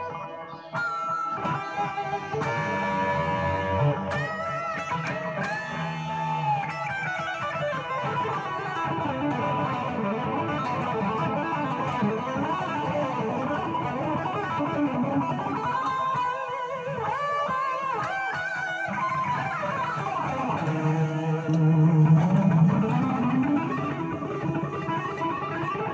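Jackson JS32 Dinky electric guitar played solo, improvising lead lines of quick single notes, many of them bent or wavering in pitch. A louder passage of low notes comes about three quarters of the way through.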